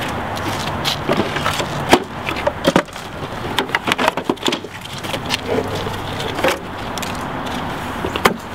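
Irregular knocks and clatter of photographic gear being handled: a developing tray and wooden cases set down and shifted about, with a sharp knock about two seconds in. A low steady hum runs underneath.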